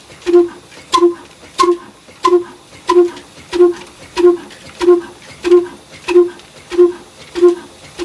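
35 HP Ruston stationary diesel engine running slowly and evenly, about one and a half exhaust beats a second, each beat a short pitched pop with a sharp click.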